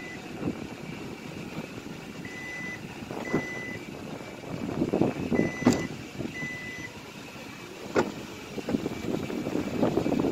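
Power liftgate's warning beeper on an SUV sounding a string of short high beeps as the tailgate closes, with a sharp click about eight seconds in as it shuts.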